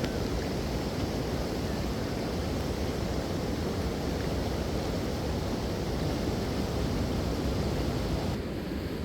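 Steady rushing of a waterfall, a dense, even roar with most of its weight low down, which turns slightly duller near the end.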